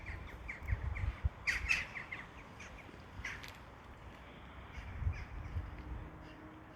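A flock of birds calling as they fly about: a quick run of short repeated calls in the first couple of seconds, then scattered single calls. Low rumbling thumps on the microphone run underneath.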